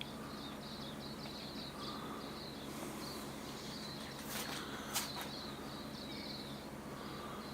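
Outdoor chirping, high and rapidly repeated, with a brief splash of water in a bird bath about four and a half to five seconds in, the sharpest sound at about five seconds.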